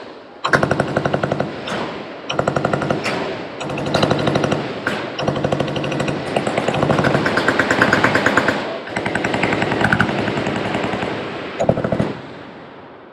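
Machine-gun fire: long, rapid bursts with short gaps between them, starting about half a second in and stopping about a second before the end.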